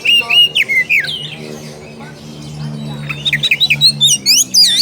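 Oriental magpie-robin (kacer) singing loud, rapid whistled phrases of sweeping notes, the kind of song used to challenge a rival. The song breaks off after about a second and starts again about three seconds in. During the gap a low steady hum is heard.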